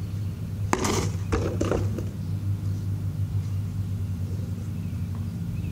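A homemade monkey fist on a cord smacks into a cardboard box with one sharp hit about a second in. The box then knocks and scrapes across asphalt for about a second, over a steady low hum.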